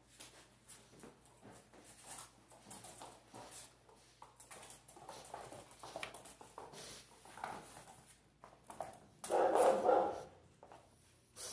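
Boxer puppies at play: scattered light clicks and scuffles with small growls and yips, then a louder play bark lasting about a second, about nine seconds in.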